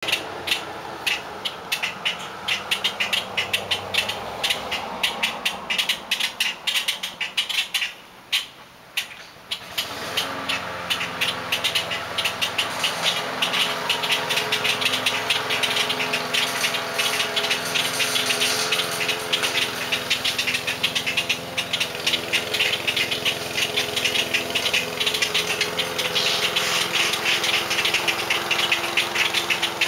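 A flock of grackles giving rapid, harsh chirps and clacks throughout, alarm-calling at an intruder in their territory. A steady mechanical hum comes in about ten seconds in and runs under the calls.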